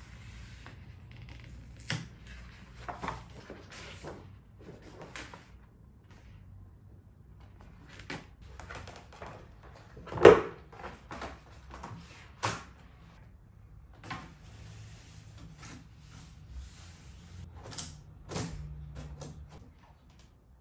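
Handling noise of framing a poster: scattered knocks and clicks from a thin black picture frame, its hardboard backing and metal retaining clips against a table, with a large sheet of thick poster paper rustling and flexing. The loudest sound comes about ten seconds in.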